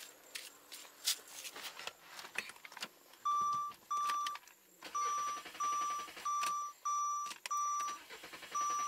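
Warning chime of a 2001 Saab 9-5 beeping repeatedly, about twice a second, once the ignition is switched on for a restart attempt. Before it come light clicks and knocks of the door and the key.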